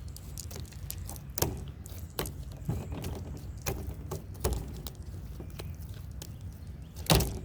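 Fluffy slime being squeezed and stretched by hand, giving scattered sticky clicks and small pops, the loudest pop near the end.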